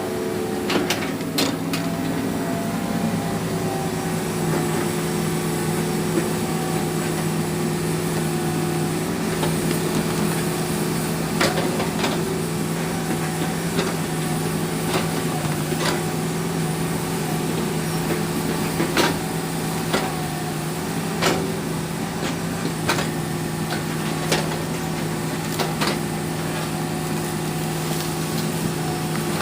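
Hydraulic excavator's diesel engine running at a steady pitch, with sharp knocks and clanks at uneven intervals as it handles logs.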